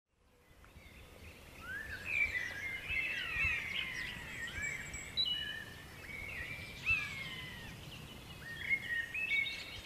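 Birdsong: several birds singing overlapping whistled phrases that sweep up and down, fading in from silence at the start.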